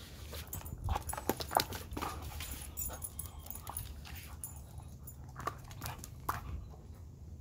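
Alaskan husky playing with a spiked rubber ball on stone patio pavers: a quick run of sharp clicks and taps from its claws and the ball on the stone, which dies away near the end.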